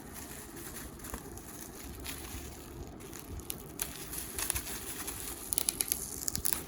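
Parcel packaging being handled and opened by hand: crinkling and rustling, with crackles coming thicker and louder in the second half.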